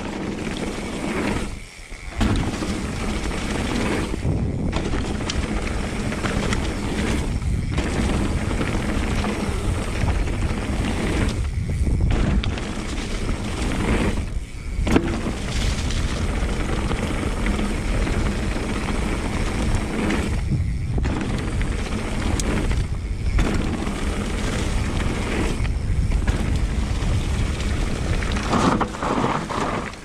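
Wind rushing over a mountain biker's action camera at downhill speed, a steady low rumble mixed with the noise of knobby tyres rolling over dirt and fallen leaves. The rushing cuts out briefly several times.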